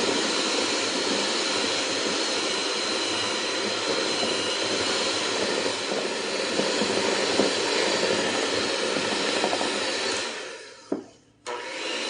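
Electric mixer beaters running at speed, beating cream cheese, butter and powdered sugar in a bowl with a steady whir. Near the end the mixer winds down almost to silence, a click is heard, and it starts up again.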